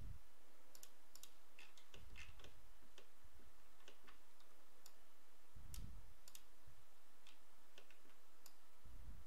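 Computer mouse buttons clicking: a run of sharp, irregular clicks over a faint steady hiss.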